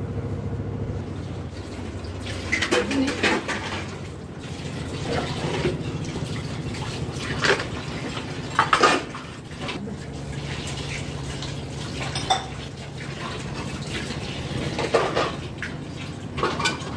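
Water running from a kitchen tap into the sink while stainless steel bowls and plates are washed, clinking and clattering against each other every second or two.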